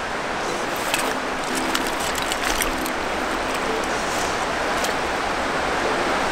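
Steady rush of flowing river water, with a few sharp clicks between about one and three seconds in as a hooked fish is played toward a landing net.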